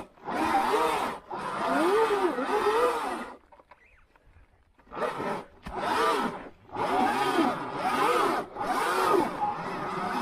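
Sur-Ron electric dirt bike being ridden: its motor whine rises and falls in short sweeps with the throttle over a rushing noise, and cuts out for about a second and a half midway.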